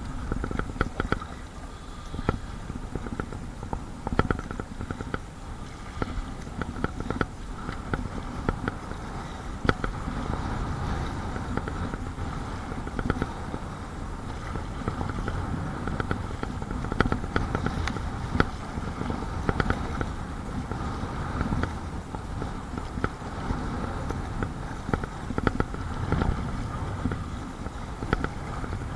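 Strong wind buffeting the microphone in a steady low rumble, with choppy water splashing and knocking against a Perception Sound 10.5 kayak as it is paddled through whitecaps. Many short sharp knocks and splashes come throughout.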